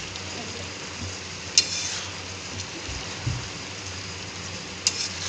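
Vermicelli sizzling in a steel kadai while a spatula stirs it. The spatula knocks sharply against the pan twice, about a second and a half in and near the end, over a steady low hum.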